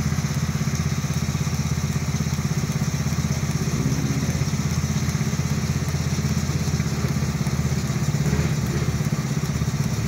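Small petrol engine of a portable milking machine running steadily at an even speed, driving the vacuum pump while the teat cups are on the cow.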